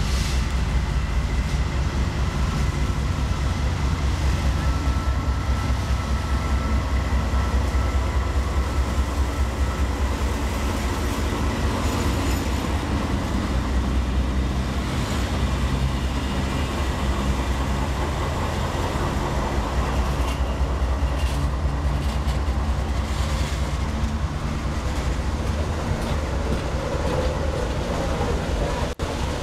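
A consist of several GE diesel-electric freight locomotives passing slowly at close range. Their engines make a deep, steady rumble, and the wheels roll over the rails with some clicking.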